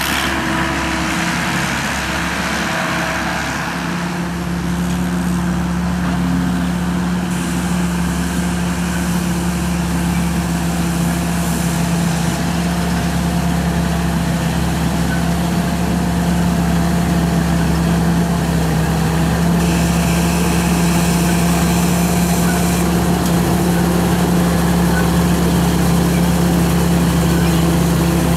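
SAK KM-D combine harvester running steadily, its turbocharged 260-horsepower engine and threshing machinery making a constant hum. A new tone joins about four seconds in, and the sound grows slightly louder in the second half.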